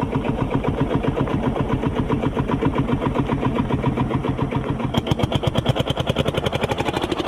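Homemade motorised toy backhoe loader, driven by a wired electric motor, running with a rapid, even ticking from its motor and gears. About five seconds in, the ticking quickens and a high whine joins it.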